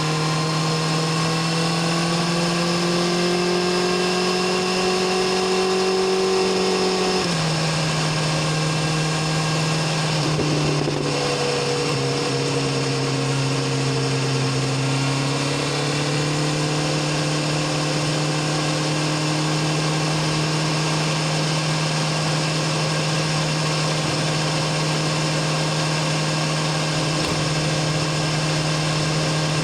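BMW S1000RR inline-four engine and exhaust running under way at a steady cruise. Its pitch climbs slightly, then steps down abruptly about seven seconds in. It sags lower for a few seconds before rising back and holding steady.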